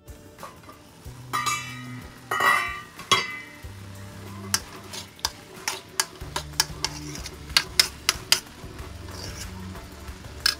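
Steel spoon stirring diced turnip in a metal kadhai, scraping the pan and striking it with many sharp clinks, mostly in the second half, over a light sizzle of the frying. Background music with low held notes runs underneath.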